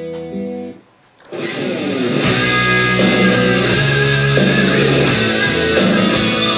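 Music: a soft guitar passage breaks off about a second in, and after a brief gap a louder rock track with electric guitar comes in, with sharp cymbal-like hits every couple of seconds.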